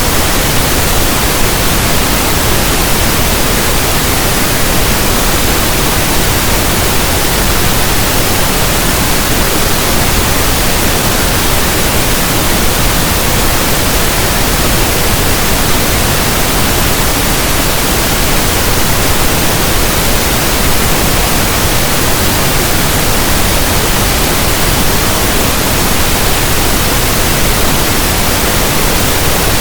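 Steady pink noise: a constant, even hiss of soft static, like a radio not tuned to a station.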